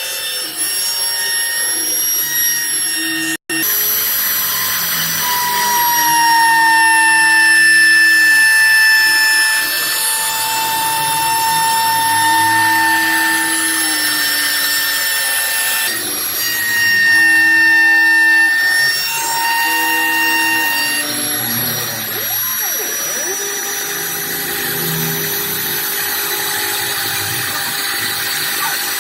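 Homemade CNC machine running, a steady whine made of several tones, some of which shift in pitch or switch on and off every few seconds as it moves. The sound cuts out for an instant about three and a half seconds in.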